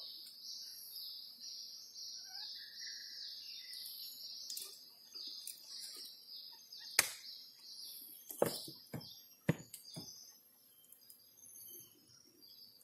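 Faint wildlife in a mangrove creek: a high chirp repeated about three times a second for the first seven seconds or so, with a lower bird call about two seconds in. A few sharp clicks or knocks come near the middle.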